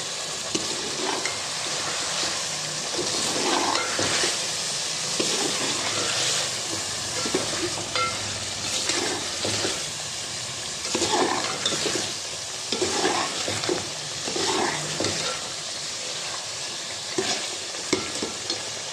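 Chicken pieces and spice masala frying in oil in a metal pot: a steady sizzle, broken by irregular scrapes and knocks of a spoon stirring against the pot.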